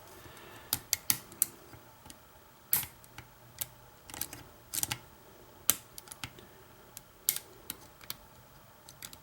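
Lock picks clicking and scraping in a car ignition lock cylinder while it is single-pin picked: irregular sharp metal clicks, about a dozen, as the wafers are set under tension.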